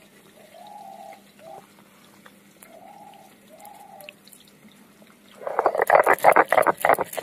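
Mustard seeds and green chillies being crushed on a stone grinding slab (sil-nora), the hand stone rocked and scraped rapidly over the slab, starting about five seconds in and loud from then on. Before that, a few faint short animal calls and light ticks as the seeds and chillies are tipped onto the stone.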